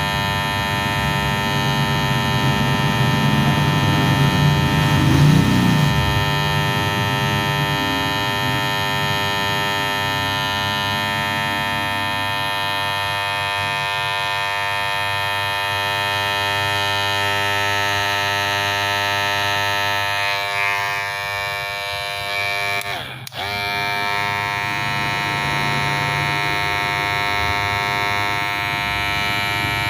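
Electric hair clipper running with a steady buzz, swelling slightly about five seconds in and dropping out for an instant about three-quarters of the way through.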